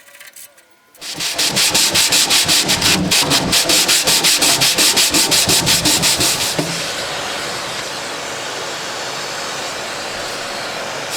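Rapid scrubbing of the tool chest's greasy steel interior: fast rhythmic rubbing strokes, about seven a second, start about a second in, then give way to a steady rasping scrub for the rest of the time.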